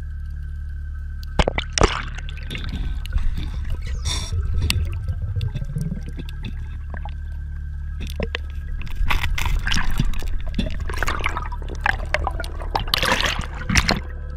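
Water noise heard through an underwater camera: a steady low rumble with scattered clicks, and several louder bursts of bubbling and splashing, the biggest about nine and thirteen seconds in.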